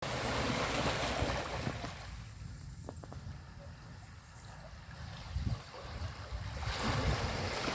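Ocean waves on a beach: a wash of surf that fades out over the first few seconds, then another wave swells up about seven seconds in, over a low irregular rumble.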